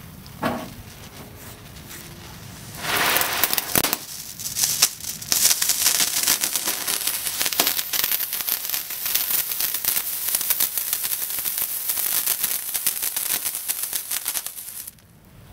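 Ground firework fountains going off: a fuse sputters briefly, then about three seconds in a loud hissing spray of sparks starts. It turns into dense, fast crackling that stops suddenly near the end.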